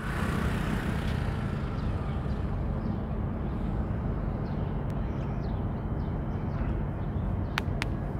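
Steady low outdoor rumble with faint high chirps scattered through it, and two sharp clicks in quick succession near the end.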